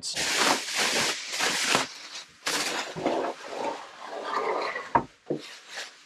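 Paper rustling as the pages of an instruction booklet are handled and turned, in several rustles with short gaps between them.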